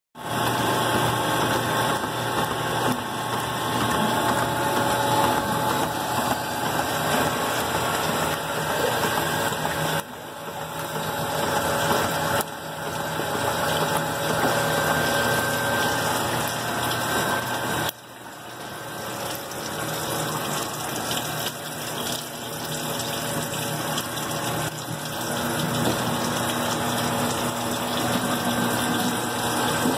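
Mivalt screw press dewatering DAF sludge, running steadily: a continuous machine hum with water running and splashing through it. The level drops suddenly three times and builds back up.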